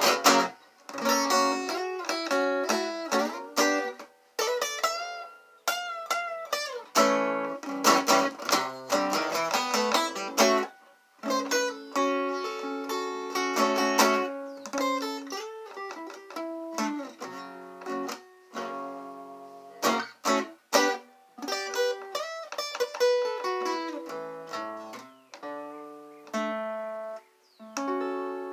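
Acoustic guitar playing a closing instrumental passage, a mix of plucked notes and strums in phrases with short pauses, thinning out towards a final chord near the end.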